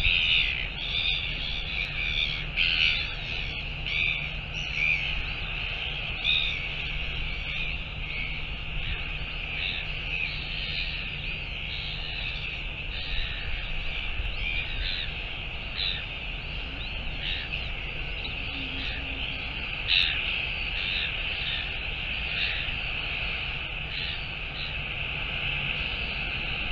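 A chorus of many birds giving short, harsh, repeated calls, one a little louder about twenty seconds in, over a steady low hum from the large cruise ship passing close by.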